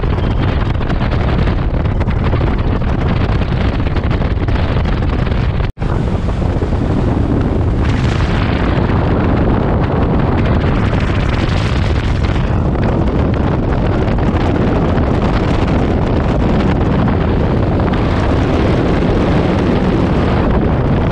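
Bass boat running fast across open water: heavy wind buffeting the microphone over the steady drone of the boat. The sound drops out for a split second about six seconds in.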